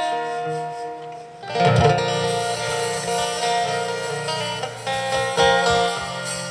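Acoustic guitar playing an instrumental song intro. It thins out about a second in, then comes back strongly with a strummed chord.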